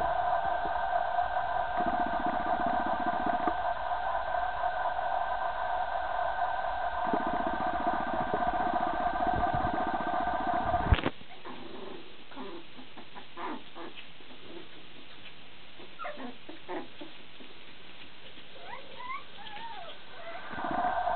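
A steady hum of several high tones runs for about half the time and cuts off abruptly with a loud click. In the quieter stretch that follows, young West Highland White Terrier puppies give a few small rising-and-falling squeaks and whimpers among some small clicks, and near the end the hum comes back.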